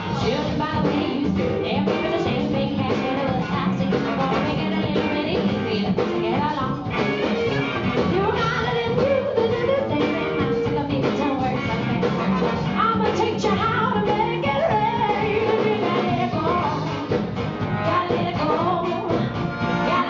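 Live soul-rock band playing steadily: a horn section, electric guitars, bass and drum kit.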